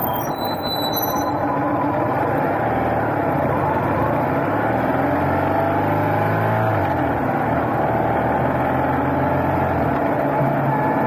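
BMW motorcycle engine running under way, its pitch rising and falling with the throttle, over a steady rush of wind and road noise.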